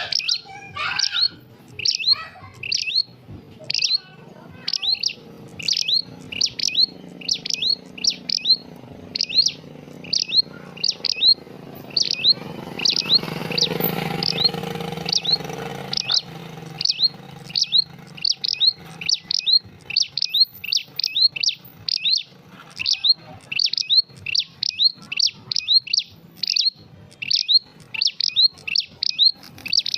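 Prenjak (prinia) calling: short, sharp chirps repeated about twice a second in an unbroken series. A low rumble swells and fades about midway.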